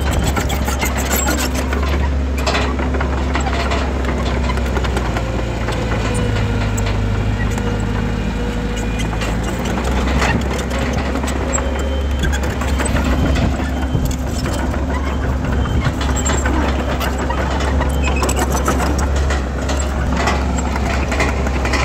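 Heavy diesel engine of earthmoving machinery running steadily, with scattered metallic clicks and its note changing for a few seconds about six seconds in.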